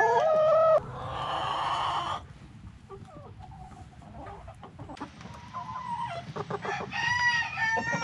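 A flock of backyard chickens clucking and calling. Loud drawn-out calls come in the first two seconds, then quieter scattered clucking, with calls picking up again near the end.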